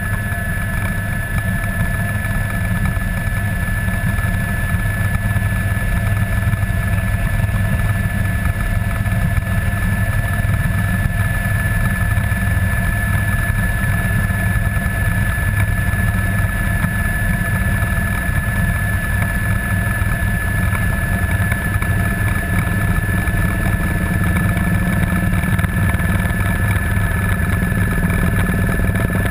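Airbus AS350 B2 (A-Star) helicopter in flight, heard from inside the cabin: its single turboshaft engine and rotor give a steady high whine over a loud, even low drone.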